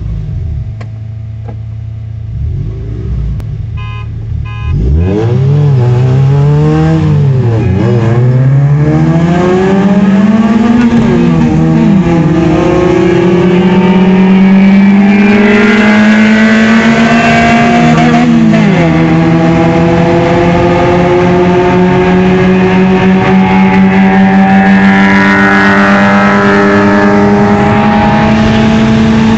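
Car engine heard from inside the car: idling at first, then revved up and down and accelerating hard, its pitch climbing and dropping back at each gear change, then running steadily at speed. A short run of quick beeps sounds just before the revving starts.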